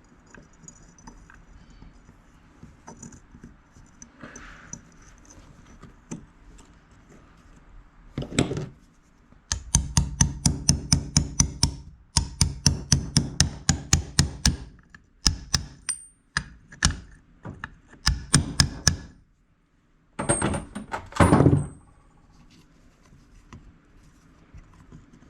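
Metal parts of a power steering pump being worked into place by hand: after quiet handling, a fast run of sharp metallic taps and knocks, about five or six a second, then a few separate knocks and a short rattling scrape.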